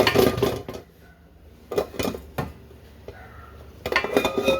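Kitchen clatter of dishes, pans and utensils being handled: three spells of knocks and clinks, near the start, about two seconds in and near the end.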